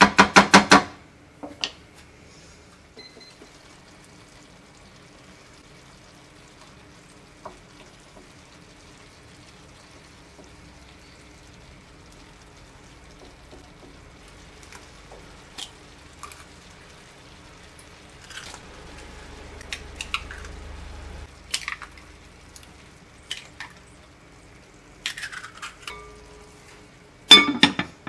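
Cooking noises at a frying pan: a loud clatter of a utensil against the pan at the start, scattered knocks and clinks, and a glass lid clattering down onto the pan near the end.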